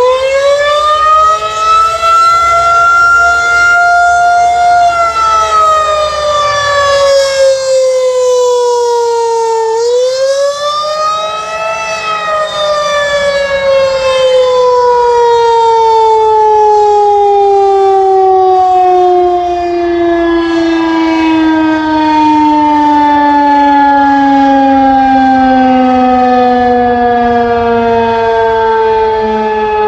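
Federal Signal 2001-130 electromechanical outdoor warning siren sounding loudly during its monthly test. Its tone rises about a second in, holds, dips by about 10 seconds in, rises again, then falls slowly and steadily in pitch for the rest of the time, ending as a much lower moan.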